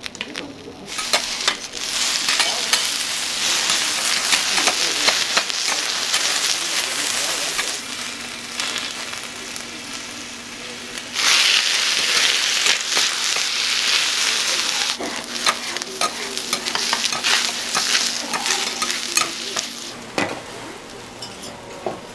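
Food sizzling loudly on a flat iron teppan griddle, with metal spatulas scraping and clicking against the plate. The sizzle surges about a second in, dips, surges again about eleven seconds in, and eases near the end.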